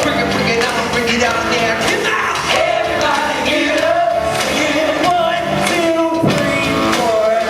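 Loud rock music with singing, steady throughout.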